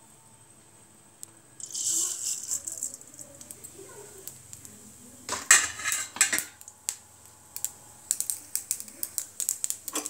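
Hot oil in a stainless steel kadai sizzling. About five seconds in there is a loud rattling burst as something is poured in, then a run of quick crackles and pops.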